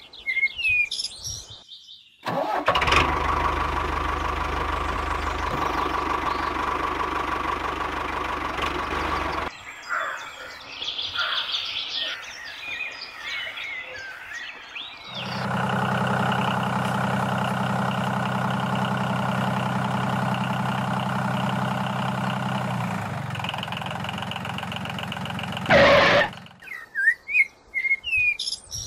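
A steady engine running sound in two long stretches, the first noisier and the second an even low drone, with birds chirping in the gap between them and at both ends.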